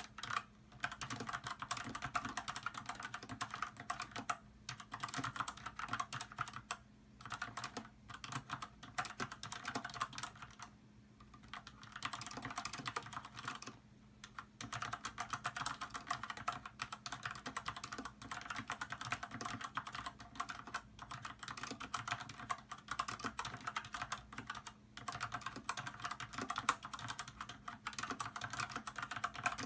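Continuous fast typing on an Archon Stylish mechanical keyboard with red switches, a dense clatter of keystrokes with the hollow case resonance typical of a mechanical keyboard. The typing stops briefly several times, about a second each time.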